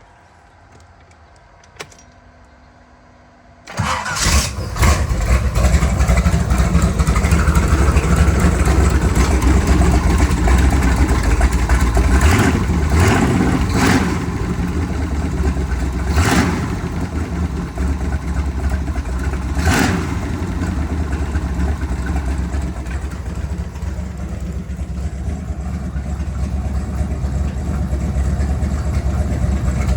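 The boat's inboard engine, coupled to a newly installed Berkeley jet pump, starts up after a single click about four seconds in and runs steadily, with a few brief revs, on its first test start after installation. It shuts off at the very end.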